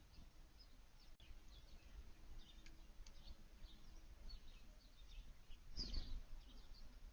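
Small songbirds giving faint, short, high chirps over and over, with one louder, nearer burst about six seconds in.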